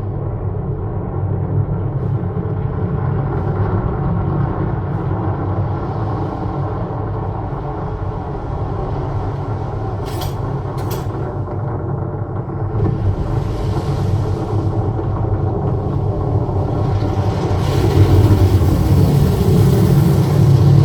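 Deep, continuous rumble heavy in the bass, played back through a Sonos Arc Ultra soundbar and Sub 4 subwoofer; it builds louder in the last few seconds, with two sharp clicks about ten seconds in.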